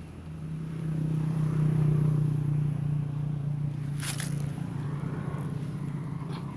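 A motor running with a steady low hum that grows louder over the first two seconds and then holds, with one sharp click about four seconds in.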